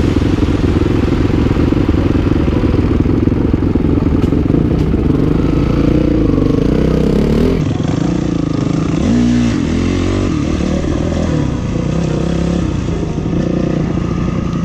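Dirt bike engine running and being revved, its pitch rising and falling, with a swooping rev about nine to ten seconds in.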